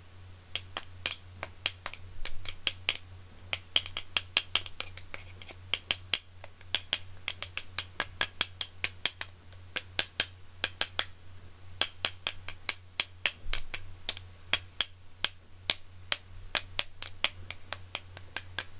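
A screwdriver and a pencil knocked together again and again in a mock fight, making sharp, irregular clicks several times a second over a steady low hum.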